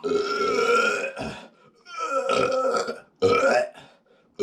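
A man burping loudly, four in a row, the first about a second long, as he tries to make room in a stomach packed with burrito.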